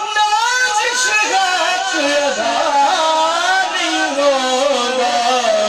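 A man singing a Punjabi devotional song into a microphone, drawing out long notes whose pitch bends and wavers in ornamented runs.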